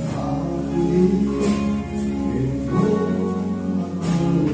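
Background music, with a new chord coming in about every second and a half.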